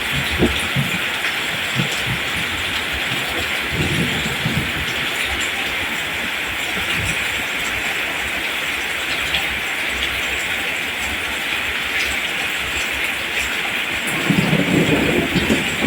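Steady rain falling on rice plants, an even hiss, with low rumbles swelling up briefly near the start, around four seconds in, and again near the end.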